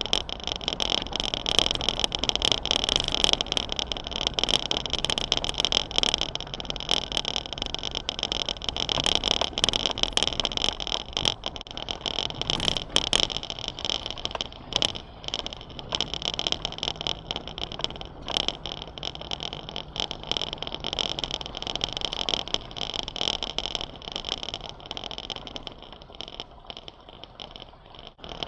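Off-road 4x4 driving on a rough mountain track: the engine runs steadily under a dense stream of short knocks and rattles.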